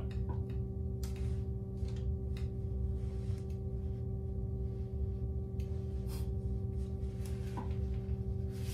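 Steady electrical hum, with a few faint rustles and ticks as the towel is handled.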